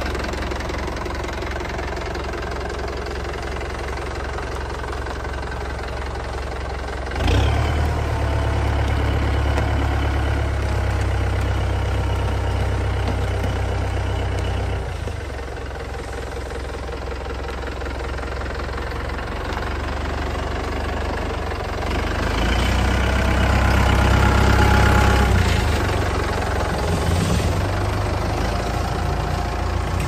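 Kubota M854K tractor's diesel engine running. It steps up suddenly in loudness about seven seconds in, eases back around fifteen seconds, and swells again in the low twenties as the tractor is driven.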